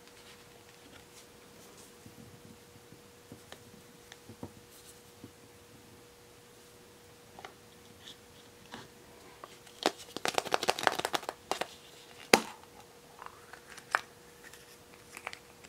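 A hollow plastic surprise egg handled and pulled open: scattered light clicks, then a quick rattling run of clicks and one sharp snap as the two halves come apart.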